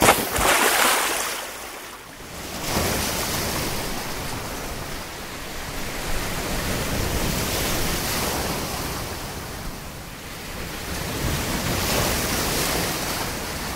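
Sea surf: waves breaking and washing in a steady rush that swells and eases several times.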